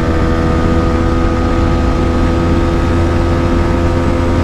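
TVS Apache RTR 160 4V's single-cylinder engine pulling steadily at high revs in fourth gear under full throttle, the bike gathering speed past about 100 km/h. Wind rumbles heavily on the microphone underneath.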